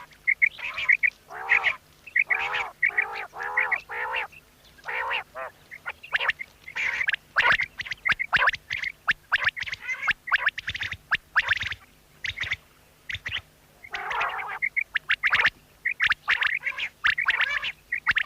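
Quail calling over and over in quick series of short, sharp notes, with a few longer wavering notes near the start and again about three-quarters of the way through.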